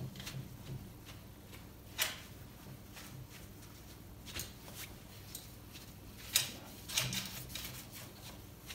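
A cloth wiping the soot-stained glass of a cast-iron stove door: a few short rubbing strokes, the clearest about two seconds in and again around six to seven seconds in.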